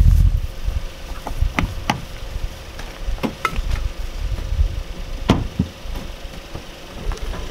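A Volkswagen Jetta's driver door being opened and, about five seconds in, shut with a solid knock, with lighter clicks and knocks of someone getting into the car.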